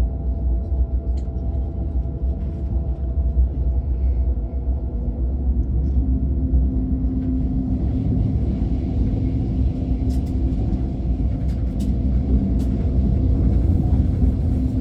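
Steady low rumble of an ICE train running at speed, heard from inside the passenger carriage, with a constant hum and a few faint clicks and rattles in the second half.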